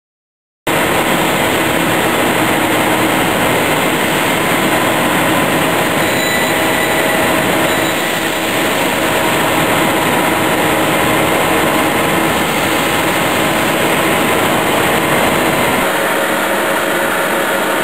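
Dairy processing machinery running steadily, a loud even noise with faint steady whining tones, starting abruptly just under a second in.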